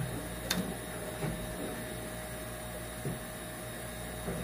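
Metal repair staples being broken off their strip and handled: a sharp click about half a second in, then a few light knocks, over a steady electrical hum.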